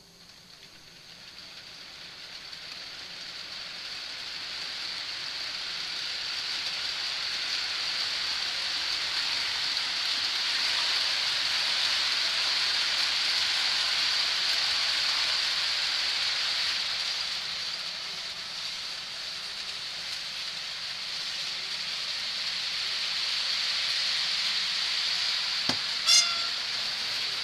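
Model train running on the layout: a steady whirring hiss that swells, dips and swells again, with a click and a brief squeak near the end.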